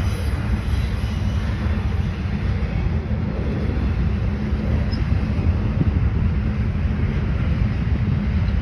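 Norfolk Southern double-stack intermodal freight train rolling past: a steady rumble of wheels on rail.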